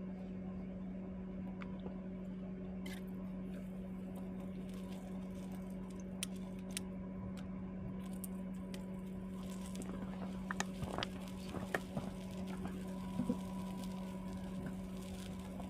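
A small fan motor hums steadily at one pitch, with scattered light clicks and crackles on top, most of them between about ten and thirteen seconds in.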